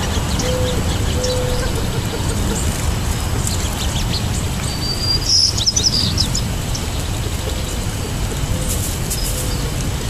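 Small songbirds chirping in short high notes, with a brief louder burst of twittering about halfway through, over a steady low rumble.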